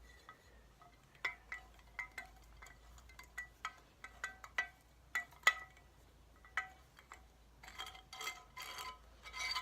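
Metallic clinks and ringing of a threaded rod and its hardware as the rod is unscrewed from a freshly installed star nut: about a dozen irregular ringing clinks, the loudest about halfway through, then a quicker rattle of clinks near the end.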